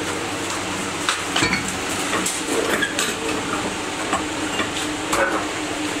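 Metal hand tools (steel bars and a spanner) clinking and knocking against each other now and then, a handful of sharp clinks, over a steady low machine hum.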